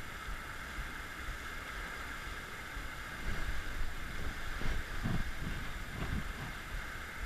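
Steady rush of water pouring through a concrete dam outflow, with low muffled knocks and rumbles between about three and six and a half seconds in.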